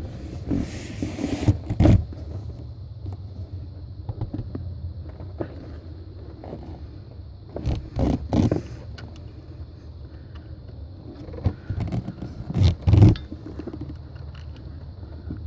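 Short knocks and scrapes of hand work fitting a camshaft position sensor and lining it up for its bolt, the loudest pair near the end, over a steady low rumble.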